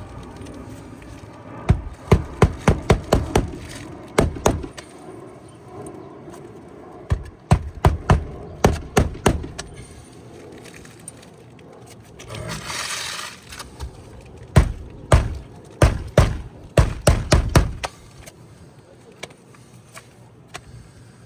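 Hammer blows on roofing nails in asphalt shingles, in quick runs of several strikes each, with a short scraping rustle about halfway through.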